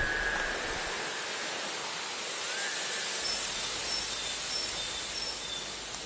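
Small stream flowing over a fallen branch, a steady hiss of rushing water. Faint short high chirps repeat from about four seconds in.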